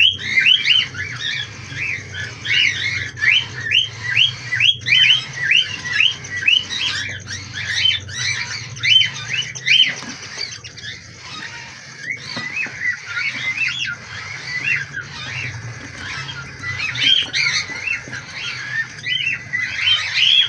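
Lovebird chicks' begging calls during hand-feeding: short, rasping squawks that rise and fall, repeated two or three a second, with a steady low hum underneath.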